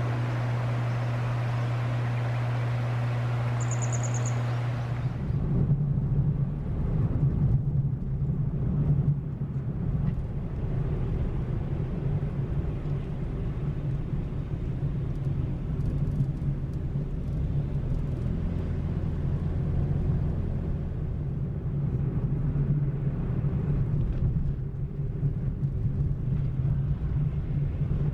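Car engine idling with a steady low hum while a bird chirps twice, then about five seconds in the car moves off and a steady engine and road rumble takes over.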